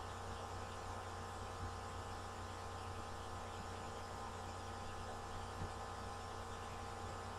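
Steady electrical mains hum with a stack of faint steady tones and a background hiss, with a faint tick or two.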